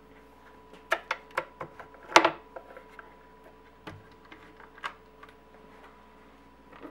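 Stepper motor driving the rose engine lathe's spindle slowly, a steady faint whine, with a run of irregular sharp clicks and knocks mostly in the first three seconds, the loudest about two seconds in, and a few scattered later.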